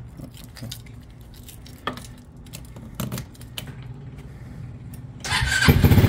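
A few light clicks and knocks, then about five seconds in the Trailmaster Challenger 300 go-kart's engine starts up and runs with a quick, even firing beat. The engine has a broken carburetor, one of its two mounting bolts broken, which makes it die right away after starting.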